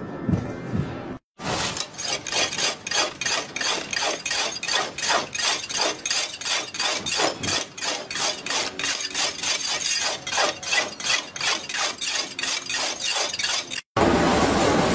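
Quick, even metal-on-metal strokes from a hand tool working a flat metal piece, about three a second, each with a short bright ring. Near the end they stop abruptly and a steady machine noise takes over.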